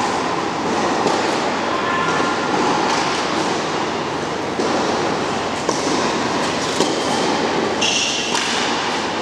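Steady noisy din of an indoor tennis hall while a player prepares to serve, with a few faint short knocks that fit a tennis ball being bounced on the court.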